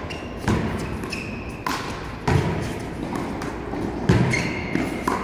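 One-wall handball rally: the ball slapped by bare hands, hitting the wall and bouncing on the court, four sharp smacks spaced a second or so apart. Two short sneaker squeaks on the court surface fall between them.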